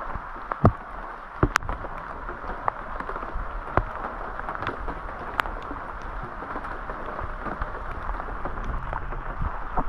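Steady rain falling, with scattered sharp taps of drops striking close by.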